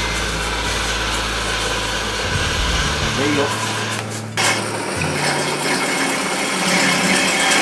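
Water-wheel-driven woodturning lathe spinning a wooden bowl while a hand works its inside with a scraping rub, over a steady low hum from the lathe. The sound breaks off briefly about four seconds in, then the lathe runs on.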